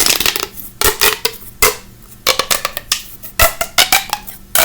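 Mini pop tube, a ribbed plastic fidget tube, being stretched and squashed: its ridges snap over in several quick runs of crackling clicks.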